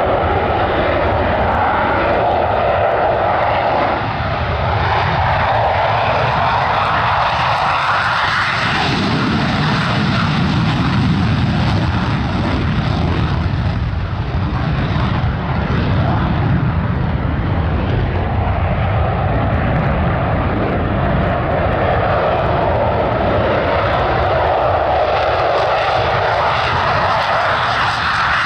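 F-16 Fighting Falcon's afterburning turbofan running in full afterburner through takeoff and climb-out: a loud, steady jet noise. A deeper rumble swells about eight seconds in.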